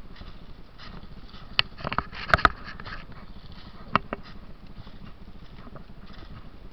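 Footsteps crunching and rustling through dry leaf litter, with a few sharp cracks about one and a half, two and a half and four seconds in, the loudest near two and a half seconds.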